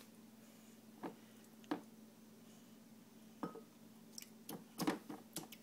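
A spoon tapping and scraping in a bowl of cereal: a few light clicks spread out, then a quick cluster of them near the end, over a faint steady hum.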